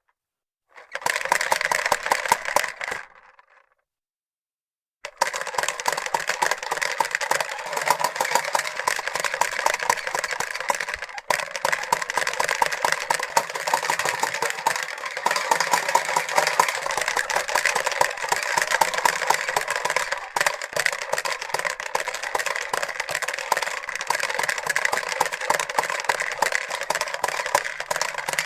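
Fisher-Price Corn Popper push toy being rolled, its plastic balls popping and rattling rapidly. There is a short burst about a second in, a pause, then steady continuous clatter from about five seconds in.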